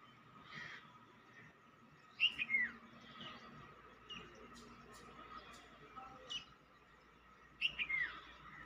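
Birds chirping: a quick falling call about two seconds in and again near the end, with shorter chirps between, over a faint steady hum.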